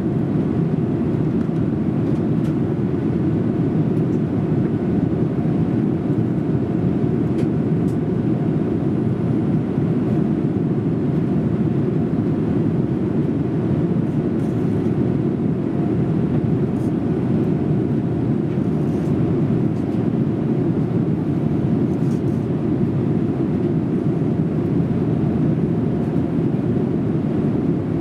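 Steady cabin noise of a Boeing 787-8 airliner in flight, heard from a rear seat: an even, deep rush of engines and airflow, with a faint steady tone above it.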